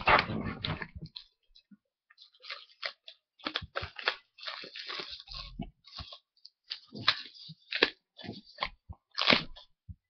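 Hands handling and unwrapping a cardboard iPad box: irregular crinkling, crackling and scraping, loudest right at the start and in a few sharp bursts near the end.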